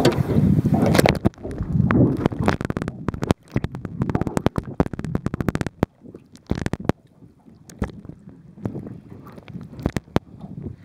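Sea water heard through a submerged camera housing: a muffled rushing slosh for about the first second, then quieter water broken by many irregular sharp clicks and crackles.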